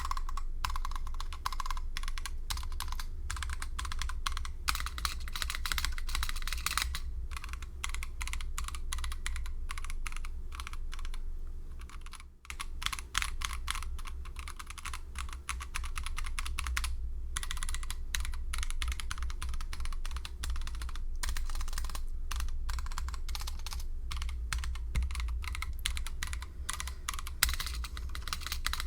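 Fast typing on a mechanical keyboard fitted with Kailh Box Black linear switches: a dense, continuous stream of keystroke clacks, with a short pause about twelve seconds in. A steady low hum runs underneath.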